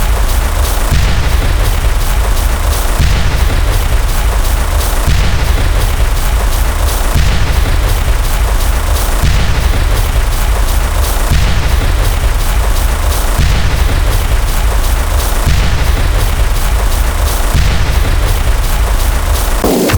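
Loud, distorted explosion-like sound effect played back to back: a dense rumble and crackle with a heavy low boom that starts afresh about every two seconds.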